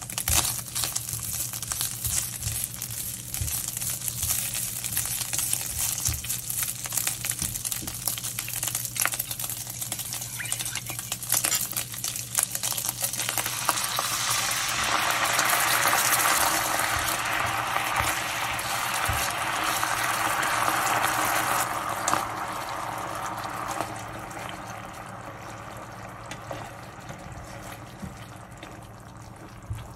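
Ground pork sizzling and crackling in hot oil in a nonstick wok, with scattered clicks. About thirteen seconds in, liquid sauce hits the pan and the sizzle turns into a louder, denser bubbling hiss, which dies down after about 23 seconds.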